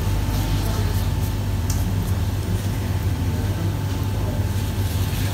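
Steady low background hum, with faint light rustling as cotton padding is handled.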